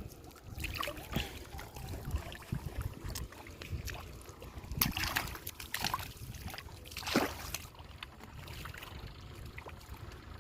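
Shallow water sloshing and splashing irregularly as hands work through it, with scattered short sharp clicks and knocks. The loudest splashes come about five and seven seconds in.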